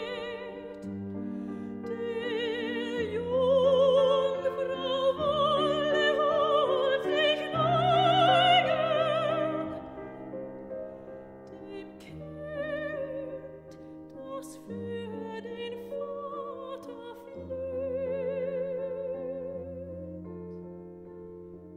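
Classical music with an operatic voice singing long notes with wide vibrato over a sustained low accompaniment. It swells loudest in the middle and then softens.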